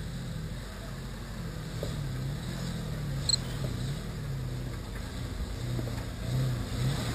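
Isuzu SUV's engine pulling under load in low gear as it crawls up a rutted, rocky dirt trail, its note rising and falling with the throttle.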